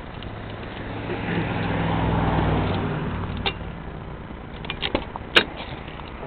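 A motor vehicle drives past, its engine hum swelling and fading over about two seconds. Then come a few light clicks and one sharp click about five seconds in, as the Camaro Z28's door latch is released and the door opens.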